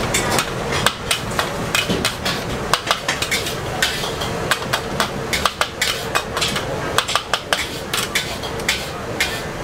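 Metal spatula knocking and scraping against a steel wok while stir-frying egg and vegetables, in quick irregular strikes over a steady kitchen background.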